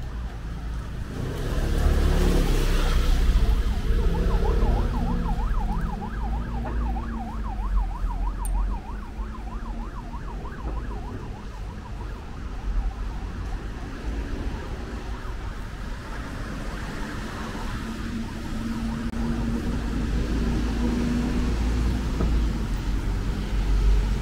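Emergency vehicle siren in a fast warbling yelp, its pitch rising and falling several times a second, heard for about five seconds. Under it, the low rumble of passing motor traffic, loudest as a vehicle goes by about two seconds in.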